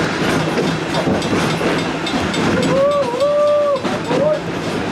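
Wildlife Express steam train running, heard from a passenger car as a steady rolling rattle of the cars on the track. About two and a half seconds in, a wavering whistle-like tone sounds for about a second, dipping once in the middle.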